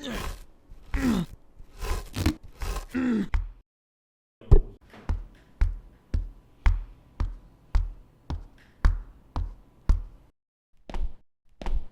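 Hand-made foley: about three and a half seconds of rasping sounds, each sliding down in pitch. After a short gap comes a steady run of footsteps, about two a second, each a short knock with a low thud, and two more steps near the end.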